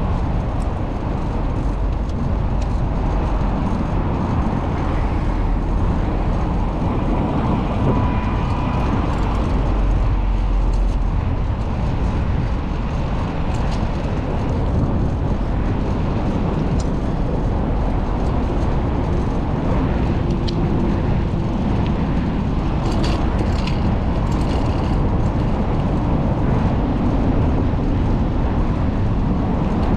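Street traffic and a steady low rumble of road and wind noise, heard from a bicycle riding through city streets.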